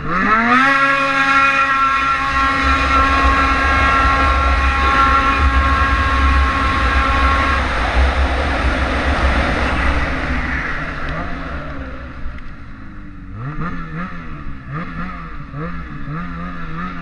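Snowmobile engine launching flat out down a drag strip. The revs shoot up at the start and hold at one high, steady pitch while the sled gathers speed. About ten seconds in the engine drops away as the throttle is released, and it ends in a few short rev blips at lower speed.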